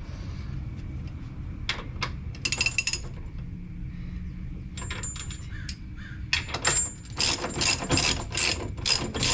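Hand ratchet wrench clicking in short runs as a bolt is snugged up: a few scattered clicks, a quick burst about two and a half seconds in, then faster, louder runs of clicks from about six seconds in.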